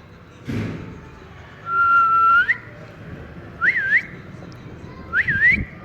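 Parrot whistling three clear notes: first a long level note that rises at its end, then two shorter notes that swoop up, dip and rise again. A short thump comes about half a second in.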